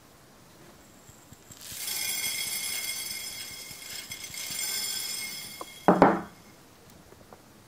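Hundreds-and-thousands sprinkles poured from a small ceramic bowl: a bright, ringing hiss lasting about four seconds, then a single knock as the bowl is set down on the wooden table.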